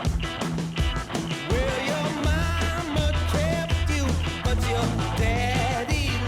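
Rock song playing: drums and guitar, with a singing voice coming in about a second and a half in and a heavy bass line joining soon after.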